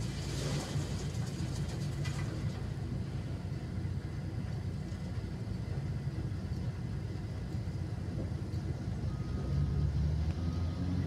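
Caterpillar 972L wheel loader's diesel engine running with a steady low rumble, with a brief hissing rush in the first two seconds. Near the end the engine rises and a high beep starts repeating about once a second.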